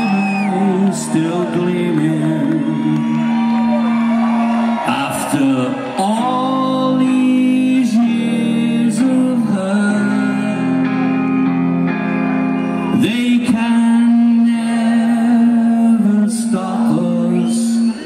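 Live rock band playing with electric guitars and drums, with singing over long held notes.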